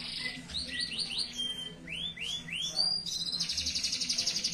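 Domestic canary singing a lively song. It opens with a short trill, then comes a run of downward-sweeping chirps and a rising whistle, and about three seconds in it breaks into a fast, even rolling trill.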